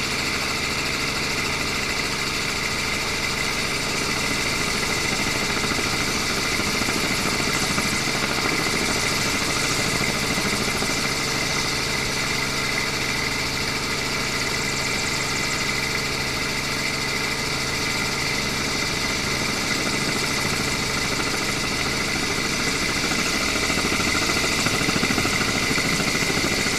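Steady mechanical hum with a constant high whine, like a motor running at an even speed, with no change in pitch or level.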